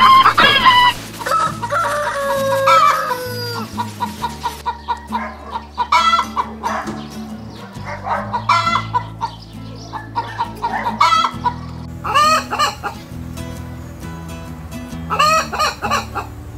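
Chickens: a rooster crows once, a drawn-out gliding call about two seconds in, then hens cluck in quick runs of short calls, over background music.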